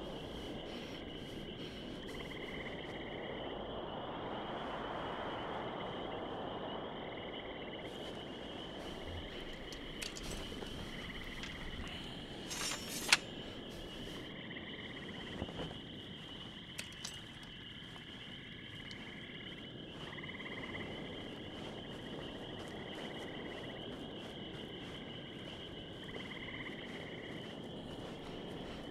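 Quiet field ambience: insects chirring steadily, with short calls repeating every two or three seconds and a sharp click about thirteen seconds in.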